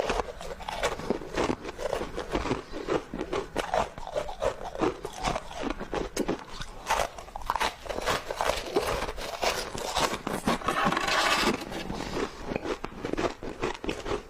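Close-miked crunching and chewing of frozen snow foam, a dense run of crisp, irregular crunches with a thicker flurry about ten seconds in.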